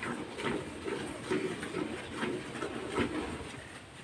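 Hand-milking a cow: milk squirting from the teats into a metal pail in a steady rhythm of about two squirts a second, stopping near the end.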